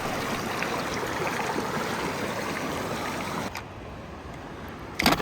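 Steady rushing noise, like running water, that drops away abruptly about three and a half seconds in. A single sharp click comes near the end.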